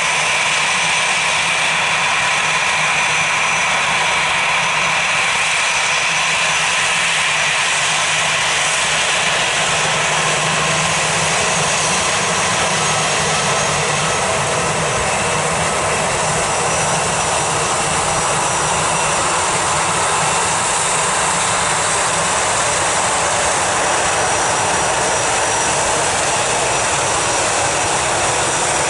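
Airbus A320's CFM56 turbofan engines running at taxi power as the airliner rolls slowly along the ground. It is a steady jet whine over a low rumble, with the whine brightest in the first few seconds.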